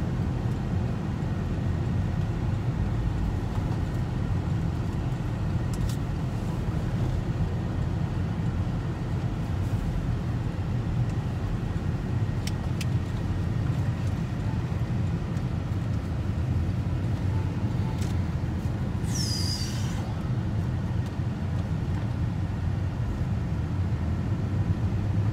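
Steady low rumble of a car's engine and tyres on the road, heard from inside the cabin while driving. About three quarters of the way in there is one brief high squeak that falls in pitch.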